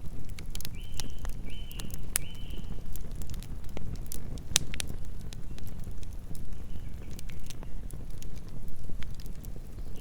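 Campfire burning with a steady low rumble and many sharp, irregular crackles and pops of the burning wood. About a second in, three short high calls from some animal sound in quick succession, with fainter ones later.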